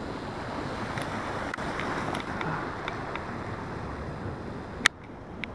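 Steady rushing of wind and distant ocean surf, with a few faint ticks and one sharp click near the end.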